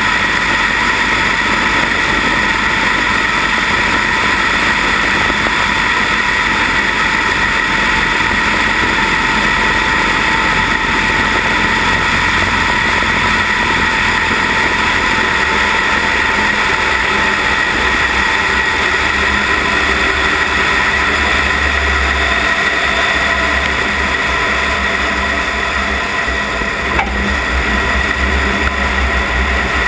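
Cessna 172 Skyhawk's piston engine and propeller droning steadily, heard from a wing-mounted camera with rushing air over the microphone, as the plane descends over the runway to land. A low rumble grows over the second half, and there is a brief click near the end.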